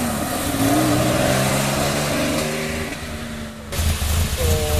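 Rally car accelerating away from a time-trial start, its engine climbing in pitch and dropping back at each gear change as it grows fainter. About three and a half seconds in, a louder, lower engine sound cuts in sharply, running rough and steady.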